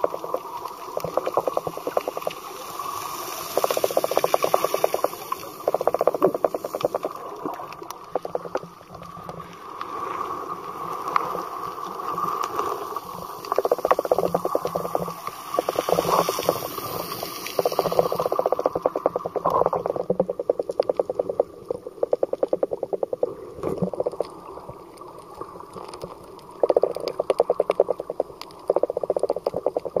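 Underwater sound picked up by a snorkeler's camera: bursts of rapid crackling, a second or two each, coming and going.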